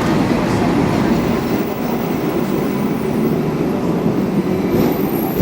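Hong Kong double-decker electric tram running on its rails, a steady low rumble. A faint high squeal comes in near the end.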